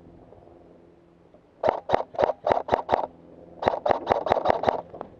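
Airsoft rifle firing quick single shots, in two strings of about six shots each at roughly four to five shots a second, with a pause of about a second between the strings.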